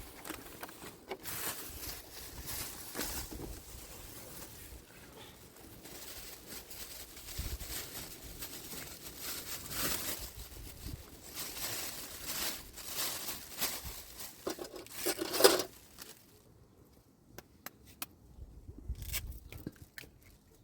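Rustling and scraping with scattered sharp clicks, which die down about sixteen seconds in to a few isolated clicks.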